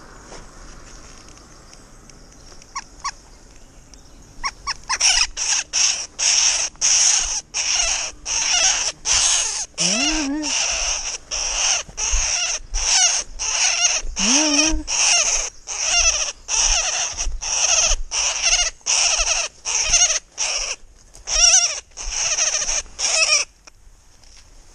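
A bird calling over and over, roughly two short calls a second, starting about five seconds in and stopping shortly before the end.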